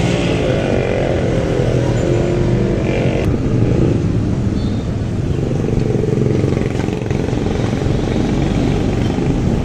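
Road traffic: motor vehicle engines running close by in a steady din, with an engine note that glides up and down in the first few seconds.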